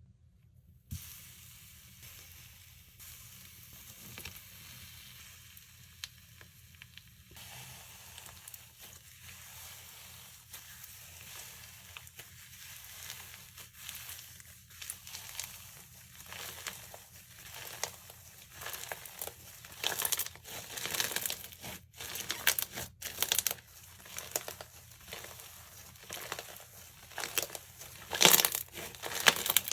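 Slime being squished, pressed and mixed by hand, giving a run of sticky crackling and crinkling sounds. They grow louder and busier from about halfway through.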